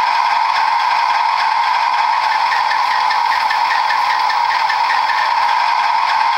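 Diesel locomotive engine sound from an HO-scale NJ2 model's DCC sound decoder, played through the model's small speaker: a steady running drone with a faint, regular ticking over it.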